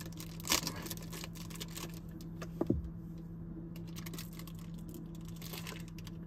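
Light clicks, taps and rustles of hands working a packaged sausage with a knife, over a steady low hum. There is a sharper click about half a second in, and a short squeak sliding down in pitch near the middle.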